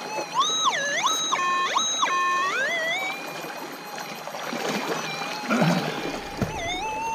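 Minelab SDC 2300 gold detector's audio tone. In the first two and a half seconds it swoops and steps up and down in pitch as the coil passes over a target, then settles into a steady threshold hum. Splashing and handling noise sounds about five to six seconds in.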